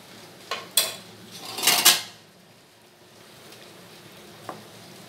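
Metal cookware clattering: two sharp clinks about half a second in, then a louder scraping clatter about a second and a half in, and one faint tick near the end.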